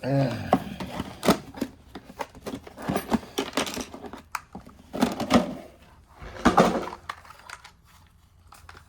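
Irregular clicks, taps and rustling from tools and small parts being handled at a workbench, with a few louder clusters about five and six and a half seconds in.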